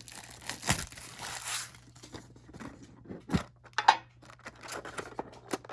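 Plastic wrapping crinkling and rustling as it is handled, then scattered light clicks and one sharper knock about three seconds in.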